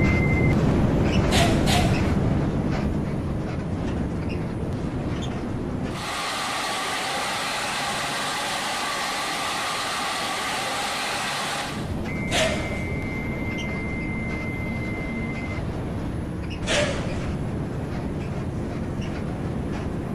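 Large bus running: a steady low engine and road rumble, broken in the middle by a few seconds of lighter hiss, with two sharp clicks and a thin, steady high whistle lasting about three seconds.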